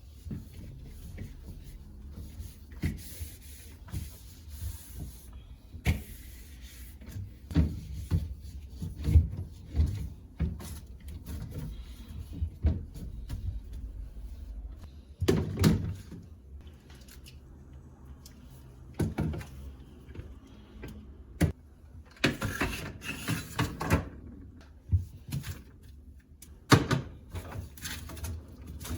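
Kitchen cleaning and tidying: irregular knocks, clacks and clatter of household things being handled and set down, with a few louder bangs like cupboard doors and short stretches of rustling or scrubbing.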